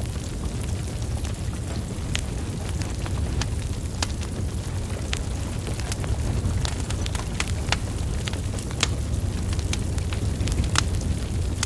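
Wood fire burning, its logs crackling with irregular sharp pops over a steady low rumble of flames.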